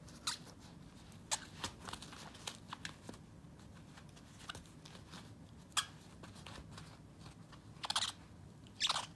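Shiba Inu chewing and tearing at a knit fabric-covered toy ball: scattered short crunching and ripping sounds, with a louder cluster near the end.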